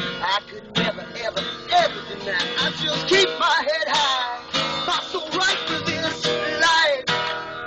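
Acoustic guitar played in a blues style: strummed chords mixed with picked notes.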